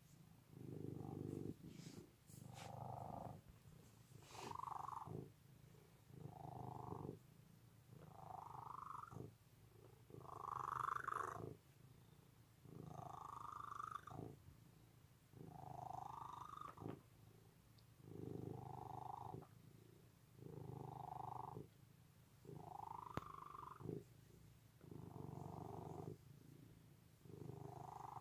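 A hairless cat purring steadily while being stroked. The purr swells and fades with each breath, about one breath every two seconds, and every second half of the cycle has a higher tone that rises in pitch.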